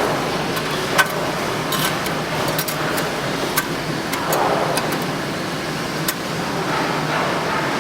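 Fan guard outer-ring welding machine running: a steady mechanical hum with sharp metallic clicks, the clearest about a second in and again near six seconds.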